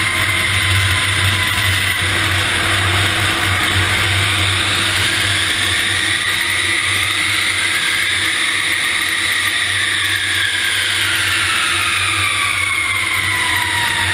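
Large airliner flying low over the runway with its main landing gear down: a loud, steady rush of airflow and jet engine noise, with engine whine tones that rise slightly and then slide down in pitch toward the end.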